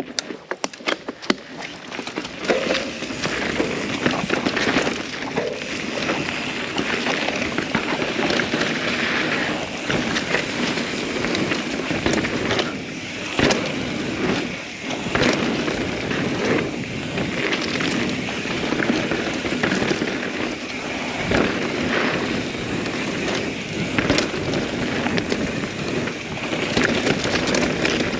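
Norco Sight mountain bike riding fast down a rough trail: steady tyre and drivetrain noise over dirt, broken by frequent sharp rattles and knocks as it hits roots and rocks.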